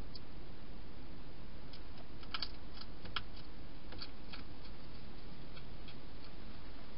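European hedgehog eating inside a plastic feeding box: irregular crisp clicks of it crunching its food, loudest and most frequent in the middle, over a steady hiss.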